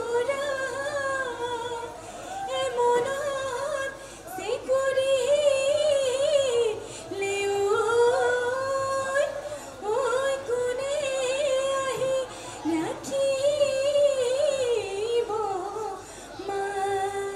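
A solo voice singing a Bihu song in phrases of a few seconds, with wavering, ornamented held notes and short breaths between phrases.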